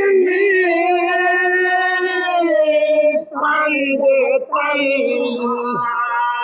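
A lone voice chanting a mourning lament (masaib) in long held notes with a wavering pitch. It breaks off briefly twice around the middle, then takes up another long note.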